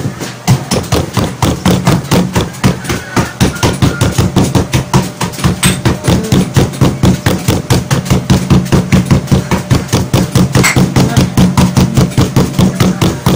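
Bottom of a glass jar pounding Cremeo chocolate sandwich cookies sealed in a plastic bag on a table: rapid, even thuds, several a second, crushing the cookies into crumbs.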